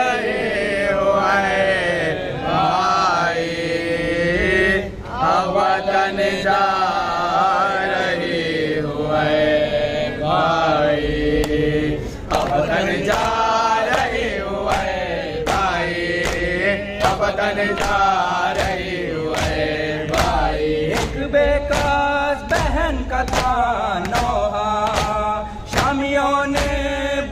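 Male voices chanting an Urdu noha lament together into a microphone, a slow mournful refrain. Steady chest-beating slaps (matam) keep time, coming in plainly about a third of the way in.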